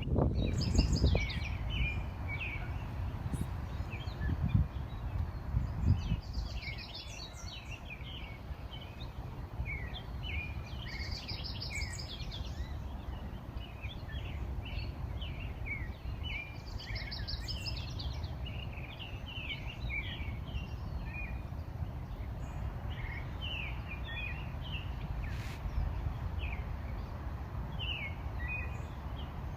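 Several songbirds chirping throughout, one of them repeating a short, rapid, high trill about every six seconds, over a steady low rumble that is louder in the first few seconds.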